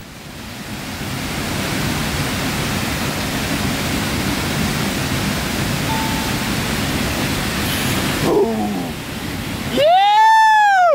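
Waterfall pouring into whitewater, a steady rushing roar that builds in over the first couple of seconds and holds. Near the end a person gives one loud whoop, rising and then falling in pitch, lasting about a second.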